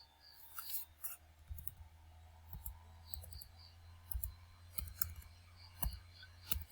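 Sparse, irregular clicking of computer keys as a short line of code is typed, over a low steady hum.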